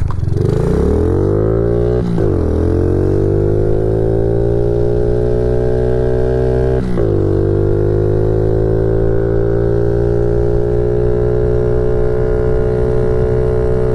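Honda CRF50 pit bike's small single-cylinder engine, fitted with an 88cc kit, accelerating hard from a standstill at full throttle. The revs climb, drop with an upshift about 2 seconds in and again about 7 seconds in, then level off near the top of the revs in third gear as the bike tops out.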